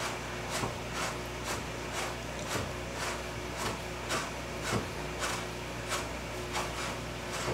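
Chrome-moly tow hook being screwed in by hand into its threaded mount, giving a soft rub or scrape about twice a second as it is turned.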